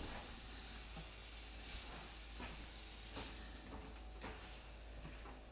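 Faint, steady sizzling of chicken tenderloins cooking, with a few soft clicks.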